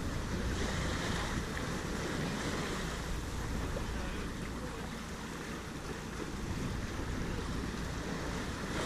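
Steady rush of water along the hull and wind on the microphone aboard a J/111 racing sailboat under sail.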